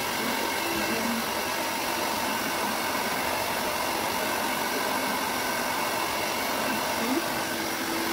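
Handheld hair dryer running steadily, blowing on a wet cat's fur.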